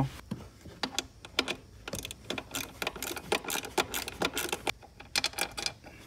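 Socket ratchet clicking in quick, uneven runs as a 12 mm bolt holding an airbag control module is backed out.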